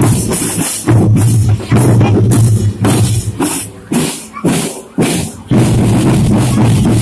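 Loud music with a heavy, booming bass line and a driving drum beat, played through a large carnival sound system. The bass drops out briefly about four seconds in and returns.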